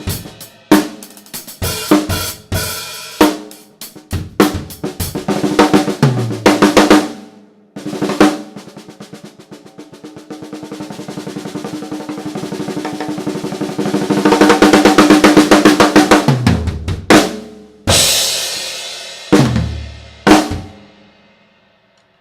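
Chicago Custom Percussion 7-inch-deep snare drum played on a drum kit with bass drum: strokes and fills, then a long snare roll that grows from soft to loud, ending in a few loud hits that ring out. Both heads are at medium tension, giving a little ring with a lot of body.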